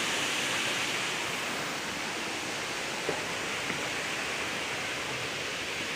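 Steady rush of a waterfall: an even, unbroken noise of falling water.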